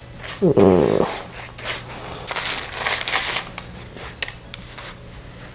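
A pastry brush dabbing and rubbing melted butter over baked bulla cakes on a parchment-lined sheet pan, with scratchy brushing noises and light handling clicks. Near the start comes a short hum from a person that slides down in pitch, the loudest sound.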